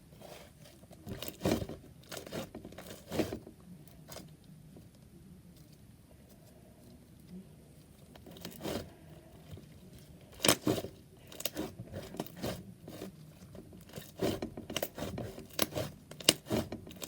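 Clay-mixed, bread-like slime being squished and stretched by hand for ASMR, giving irregular clusters of crackles and sharp pops with quieter gaps between.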